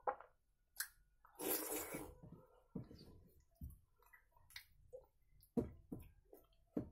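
Fingers squishing and mixing soft, starchy rice with mashed vegetables on a steel plate: a series of short wet squelches and clicks, with a longer noisy stretch about a second and a half in.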